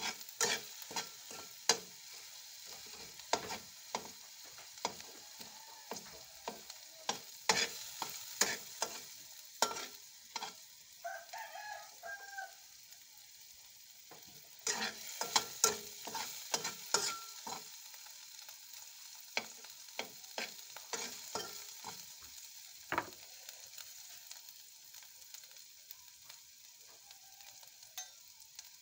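Garlic sizzling in hot cooking oil in a pan, with a metal spatula scraping and clacking against the pan as it is stirred in quick irregular runs with short pauses. The garlic is being sautéed until golden brown.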